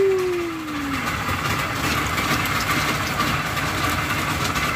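Boat engine running steadily. A short falling tone sounds in the first second.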